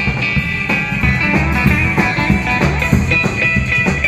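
Rockabilly band music with guitar over a steady drum beat.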